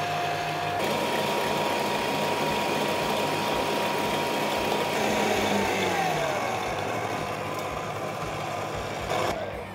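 Kenwood stand mixer running steadily as its balloon whisk beats egg whites in a stainless steel bowl, whipping them to soft peaks. About halfway through the motor's pitch falls as it slows, and it cuts off near the end.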